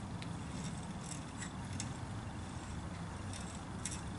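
Starter tap in a T-handle tap wrench being turned slowly by hand, cutting an M4 thread in a metal part, giving a few faint clicks and ticks over a steady low hum.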